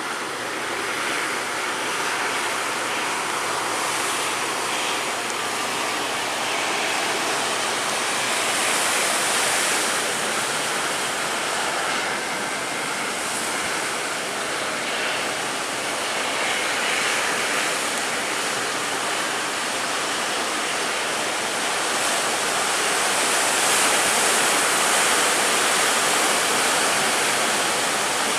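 Large ocean waves breaking and surf rushing in a steady loud wash, swelling a little louder about a third of the way in and again near the end.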